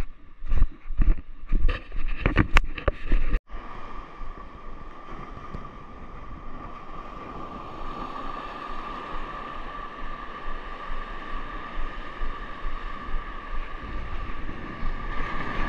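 Footsteps on loose beach stones, about two a second, for the first three seconds. Then, after a cut, steady surf washing over the rocks with wind on the microphone, a wave breaking louder near the end.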